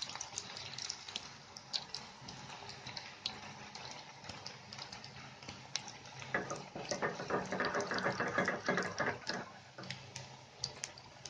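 Hot oil deep-frying pieces of leftover chapati, sizzling steadily with many small pops and crackles. About six seconds in, the sizzling turns denser and louder for roughly three seconds, then eases.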